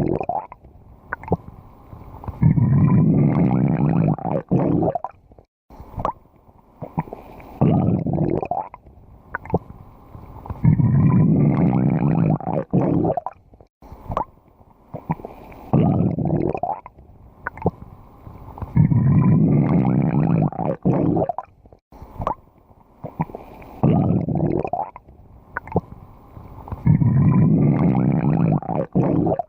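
Stomach growling and gurgling: loud, bubbly rumbling bouts of about two seconds, with quieter gurgles and small pops between them. The same pattern repeats about every eight seconds.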